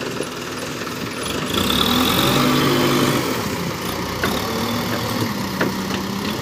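Diesel engine of a Tata Hitachi Shinrai backhoe loader running while its front bucket is pushed into a pile of broken bricks. The engine gets louder and labours about two seconds in, under the load of the scoop, then settles back.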